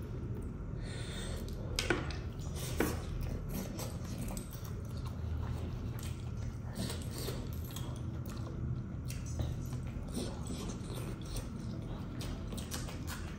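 Close-up eating sounds of a man eating fish curry and rice by hand: chewing, lip-smacking and wet squishing of fingers in rice and gravy, with two sharper clicks about two and three seconds in, over a steady low hum.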